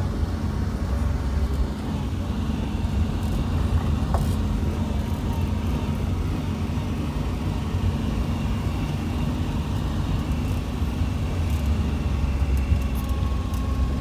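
Car driving along a paved road, heard from inside the cabin: a steady low rumble of engine and tyres, with a few faint clicks.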